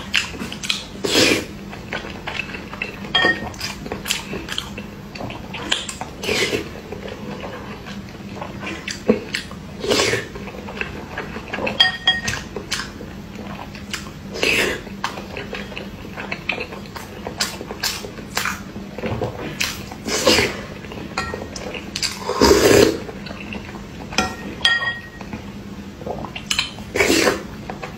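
Close-up eating sounds: a metal spoon knocking and clinking against a ceramic bowl and mouth noises of biting and chewing whole boiled eggs, in short irregular bursts every second or two.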